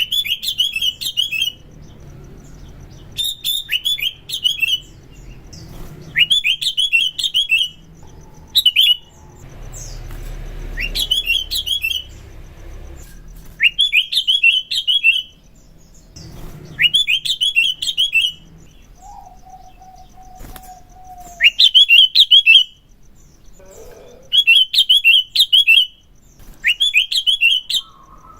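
Sooty-headed bulbul (kutilang) singing: short phrases of a few quick, high chirping notes, repeated every two or three seconds. About two-thirds of the way through, a lower, drawn-out whistled note sounds once between phrases.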